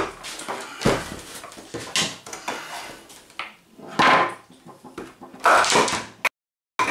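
Hard plastic vacuum cleaner housing being handled and worked with a screwdriver: a string of irregular knocks, clicks and short scrapes of plastic against plastic and metal.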